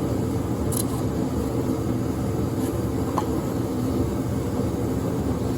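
Steady low mechanical rumble, like a machine or motor running, with a few faint clicks.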